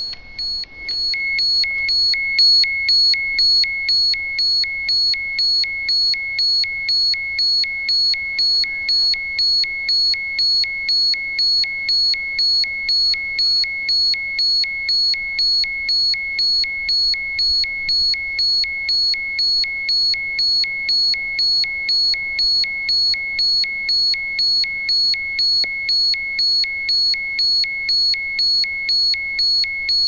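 Ecotest MKS-05 radiation dosimeter beeping steadily in a high-pitched, even rhythm of about two beeps a second. It is the instrument's alarm at a high dose-rate reading of about 1.06 microsieverts per hour.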